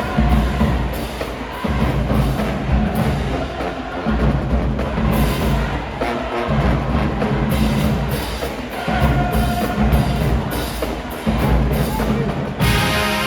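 Marching band drumline playing a loud rhythmic cadence: deep bass drums with sharp snare and cymbal strokes. The brass section comes in near the end.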